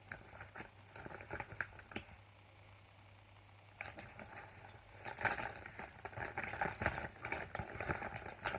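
A hand rummaging through a fabric makeup bag, makeup items clicking and rattling against each other. The rummaging comes in two spells, with a short pause of a second or so a couple of seconds in.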